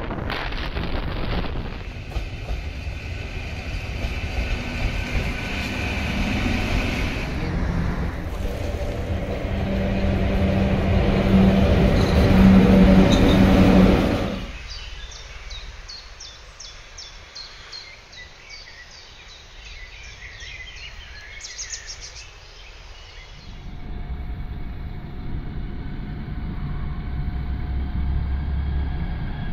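Outdoor traffic sounds on a phone microphone, in three cuts. First a vehicle drives with a heavy road-and-wind rumble that grows louder with a steady hum, then cuts off suddenly about halfway. Then comes a quieter stretch with rapid short high ticks, and finally street traffic with a low engine hum near the end as a city bus passes.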